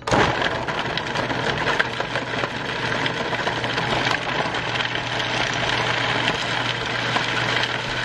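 KitchenAid mini food processor running, its blade chopping chunks of raw carrot: a loud, dense crackling rattle that starts suddenly and runs steadily.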